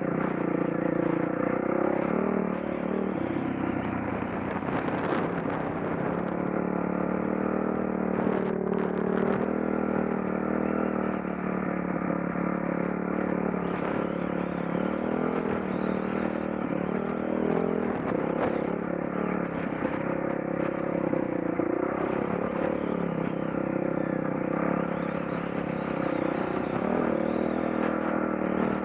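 Dirt bike engine running, its pitch rising and falling again and again with the throttle.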